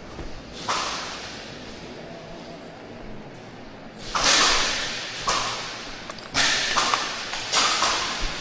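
Airsoft gun shots: a single sharp crack early on, then a string of cracks in quick succession from about halfway through, each with a short echo.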